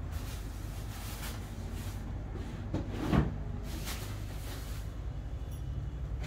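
Household things being handled and moved about while a room is tidied: a few short swishes, with one louder bump about three seconds in.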